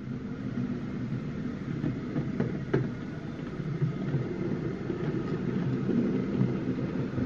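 OO gauge model B4 tank locomotive running along the track hauling wagons and a brake van: a steady motor and wheel rumble that grows louder as the train comes closer. There are a couple of sharp clicks about two and a half seconds in.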